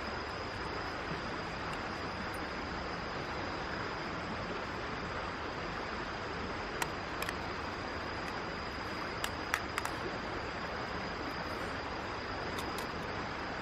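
Mountain stream flowing: a steady, even rushing, with a few light clicks around the middle and one near the end.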